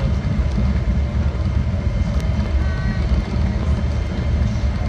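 Steady low rumble in the cabin of a Boeing 777-300ER rolling on the ground after landing: the engines, airflow and wheels running over the pavement, even and unbroken.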